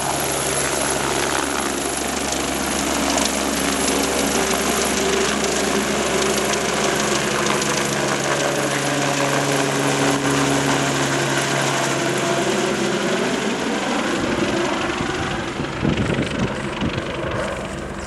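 Agusta A109 medical helicopter's rotor and twin turbines running loud as it climbs away overhead. Its tones sweep lower as it passes over and departs. Near the end, wind buffets the microphone in low, uneven rumbles.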